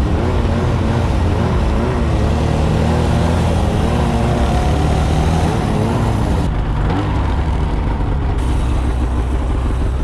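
Snowmobile engine running while riding through snow, its pitch wavering up and down with the throttle.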